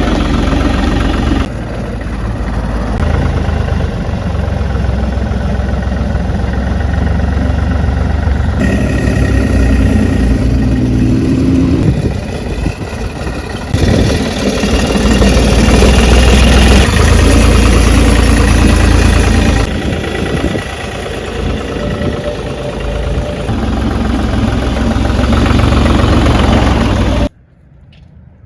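A Ditch Witch trencher's engine running, heard in several spliced clips with abrupt changes in level. It cuts off suddenly near the end, leaving a much quieter background.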